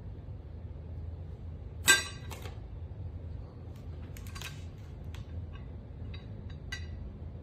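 Metal lid of a custom metal brick coming off its base with one sharp, ringing metallic clink about two seconds in, followed by several lighter clicks and taps as the lid is handled.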